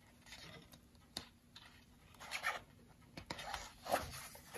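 Paper page of a large hardcover picture book rustling as it is handled and turned by hand, in several short rustles with a sharp tick about a second in.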